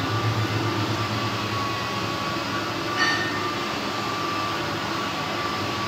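Electric nail drill running with a steady whine, its burr worked against a thick, curled toenail; one short sharp sound about three seconds in.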